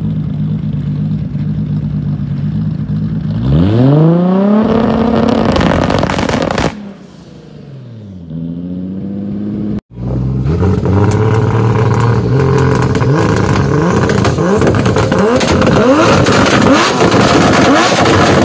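Toyota Supra Mk4 straight-six running steadily, then revving up sharply about a few seconds in and holding high revs before falling away. After a cut, a second tuned Supra is revved while stationary, its revs bouncing on a two-step limiter and the exhaust crackling with rapid pops and bangs.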